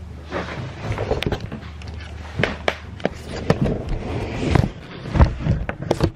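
A person climbing into and settling inside a suitcase: rustling of clothes and fabric against the microphone, with scattered bumps and knocks as she shifts about, loudest near the end.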